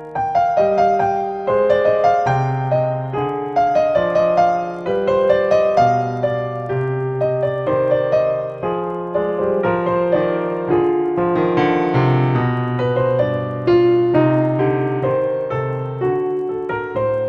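Background piano music, a gentle melody over a steady chordal accompaniment.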